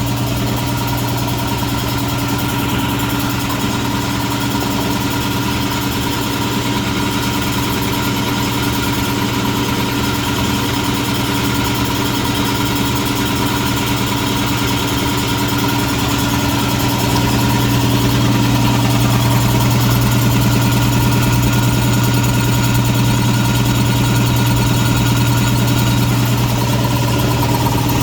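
Two homemade two-stage air compressor pumps, each driven by its own electric motor, running steadily together and building tank pressure past 100 psi toward their cut-out. A strong steady low hum, getting a little louder about two-thirds of the way through.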